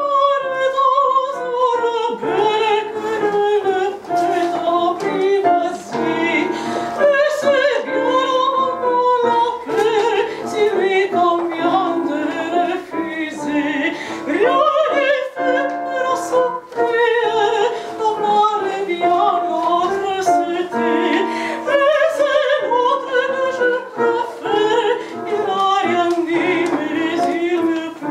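A soprano sings opera in full voice with vibrato, accompanied by a Roland digital piano. The melody moves in long phrases that fall in pitch, several times over.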